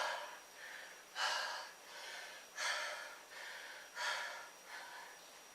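A man breathing hard and loud, deep breaths about every second and a half, winded from a set of push-ups; the breaths ease off toward the end.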